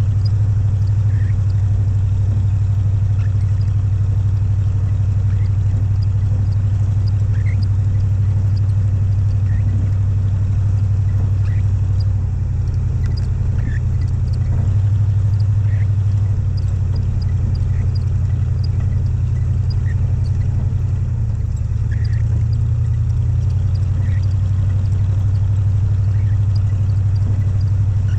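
Off-road vehicle's engine running under way with a steady low drone, its pitch shifting down and back up a couple of times past the middle as the revs change while driving a snow-covered road. Faint scattered ticks sound over the drone.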